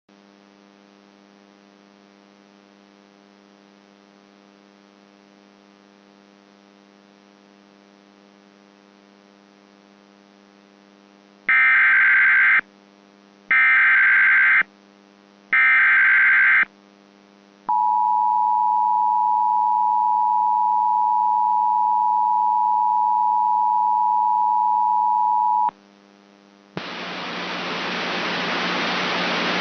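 Emergency Alert System tones. Under a faint buzzing hum come three short, screechy SAME data header bursts about a second apart. An eight-second two-tone attention signal follows, then a hiss of static that swells near the end.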